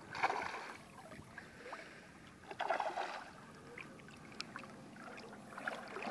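Water splashing in two short bursts as a hooked barbel thrashes near the surface, with a few light clicks in between.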